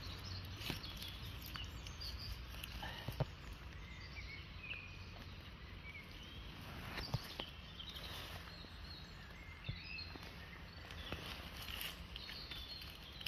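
Quiet woodland background with scattered faint bird chirps, and a few sharp clicks and rustles of a hand and knife in wet leaf litter as a morel is cut at its base.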